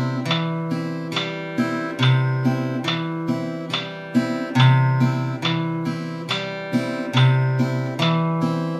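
Steel-string acoustic guitar fingerpicked in a repeating broken-chord (arpeggio) pattern, a 3/4 / 6/8 picking exercise. It is a steady run of single plucked notes, with a low bass note coming round about every two and a half seconds as the chords change.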